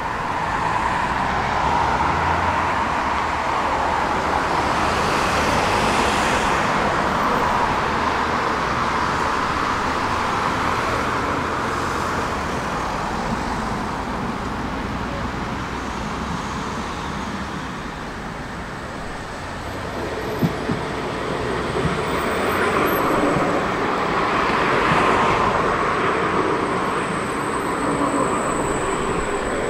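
City street traffic, vehicles passing in a steady wash of noise that swells and fades. From about twenty seconds in, a few sharp clicks and the noise of a tram coming in.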